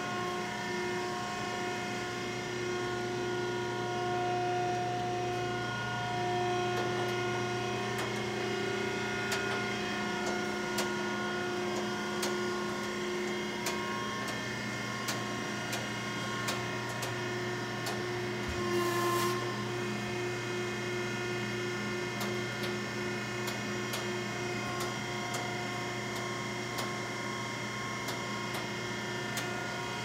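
Selco V5-HD vertical baler's 15 HP hydraulic power unit running idle: a steady hum of several held tones, with scattered light ticks and clicks.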